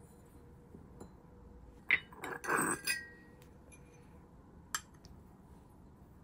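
Ceramic teaware clinking as the teapot, its lid and the nested cups are handled: a sharp clink about two seconds in, then a short cluster of clinks and scrapes with a brief ring, and one light tap near five seconds in.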